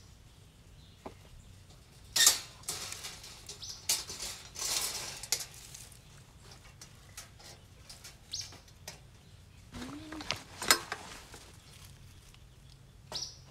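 Wire-mesh live cage trap clinking and rattling as it is handled and set, in scattered bursts, the loudest about ten and a half seconds in.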